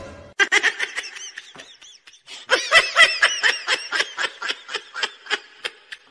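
A person laughing, high-pitched, in quick repeated bursts of about four a second, with a short pause near two seconds in.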